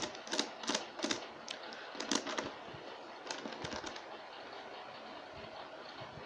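Plastic faces of a Shengshou Megaminx puzzle clicking as they are turned by hand, a quick run of irregular clicks that thins out after about four seconds.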